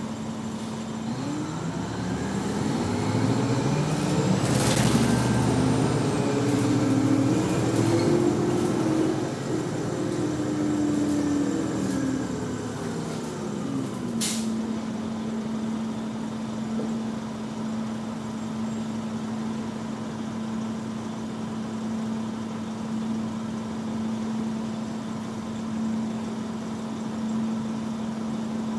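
Detroit Diesel Series 50 four-cylinder diesel of a 1996 New Flyer D40LF city bus, heard from inside the cabin. It pulls away from idle, climbing in pitch as the bus accelerates and falling away as it slows, with a brief hiss about five seconds in. About fourteen seconds in there is a sharp click, and the engine settles back to a steady idle drone.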